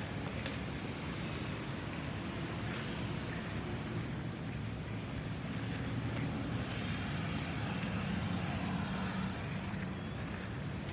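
Steady low outdoor rumble of background noise, swelling slightly around the middle and easing off near the end.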